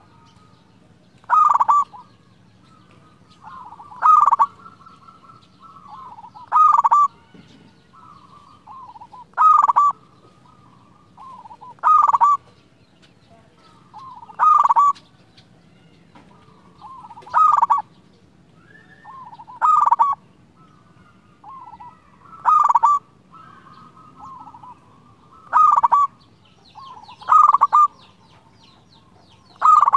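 Zebra dove (perkutut) singing over and over: a loud trilled cooing phrase about every two and a half seconds, about a dozen in all, with fainter trilled coos in between.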